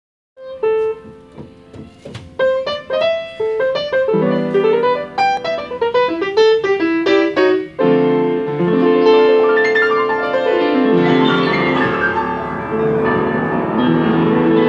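Yamaha JU Silent Piano upright being played. Separate notes at first, then quicker runs and chords from about four seconds in, and a brief break near eight seconds before fuller, sustained chordal playing.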